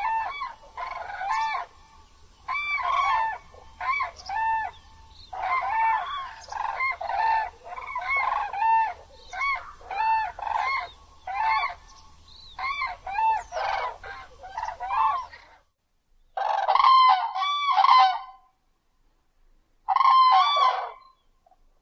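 Grey crowned crane calling: a long series of short, arched honks at about two a second, over a low background hum. About fifteen seconds in the hum cuts off suddenly, and two more short bouts of honking follow after pauses.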